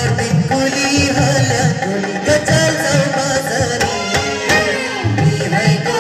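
Indian folk dance music: a song with singing over a steady beat of drum strokes.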